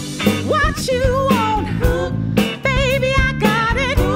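Band playing with a woman singing lead in a wavering vibrato over a drum kit beating out a steady rhythm.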